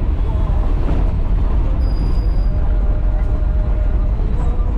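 Steady road traffic noise, with a heavy low rumble and a faint engine hum.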